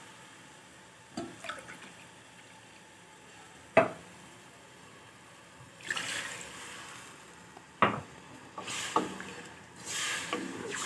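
Water poured from a jug into a pot of fried potato-and-pea masala, swelling about six seconds in and again near the end. A few sharp knocks stand out, the loudest about four seconds in.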